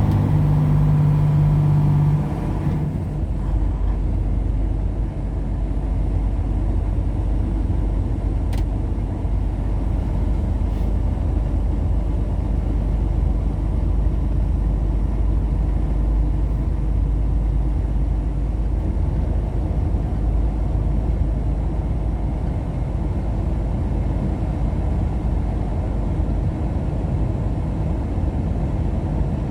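Steady engine and road noise inside a moving vehicle. A steady-pitched engine hum drops away about two seconds in, leaving a continuous low rumble.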